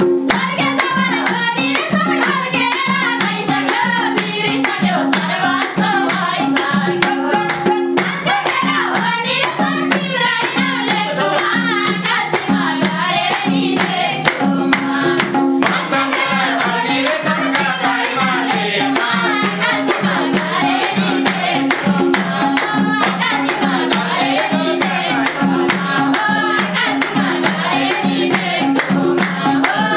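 Nepali dohori folk song sung by a mixed group of women and men in chorus, with hand clapping keeping a steady beat.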